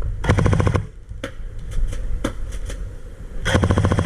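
Airsoft gun firing on full auto: a short rapid burst about a quarter second in, a few single shots, then a long continuous burst starting near the end.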